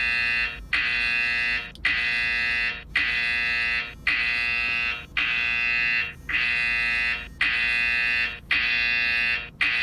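Gojek GoPartner driver app's incoming-order alert ringing from a Xiaomi smartphone's speaker: a loud, high, buzzy chime repeating about once a second. It stops near the end as the accept countdown runs out.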